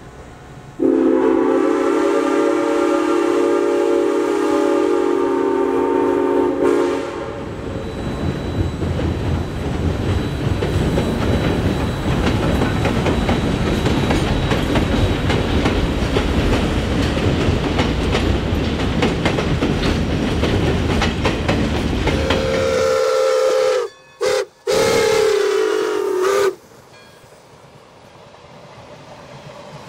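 Steam locomotive whistle, a chord blown steadily for about six seconds. Then the Southern Railway 630, a 2-8-0 Consolidation, runs past with its train in a dense rumble and clatter. Near the end a whistle chord sounds again for about four seconds, cut by two brief dropouts.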